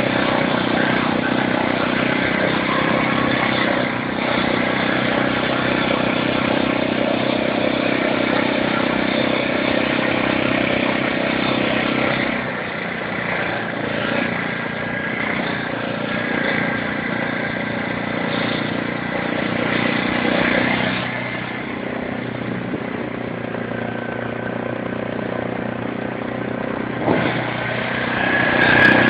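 ATV engine running under way on a trail, a steady drone that eases off about twelve seconds in and picks up again near the end.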